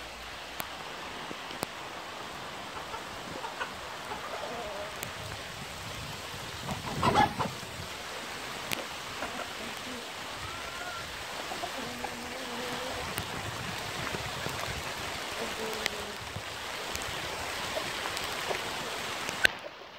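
Steady rain falling, with scattered drips. Chickens make a few soft calls now and then, and there is one louder, short call about seven seconds in.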